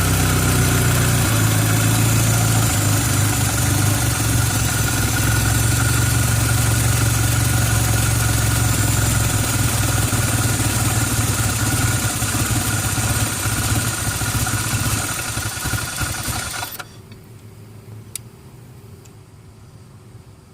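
1990 Toyota Celica Alltrac's 3S-GTE turbo four-cylinder idling rough, running steadily at first, then growing uneven and stalling suddenly about 17 seconds in. The stall comes as the vacuum climbs to about 12 inHg with the air flow meter connected, which the owner and forum helpers put down to a vacuum leak.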